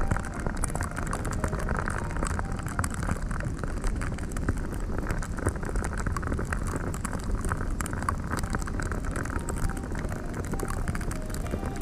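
Wind blowing on the microphone over the steady rush of surf, with a fine crackle throughout.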